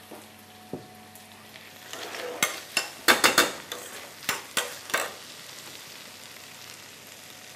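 A metal spoon stirring potato risotto in a stainless-steel saucepan, with a run of sharp scraping clicks against the pan from about two to five seconds in, over a soft steady sizzle from the pan.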